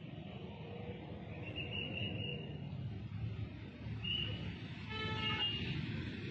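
Military bugles sounding faintly in the closing notes of a ceremonial bugle call, over a steady low background rumble, with a single short held note about five seconds in.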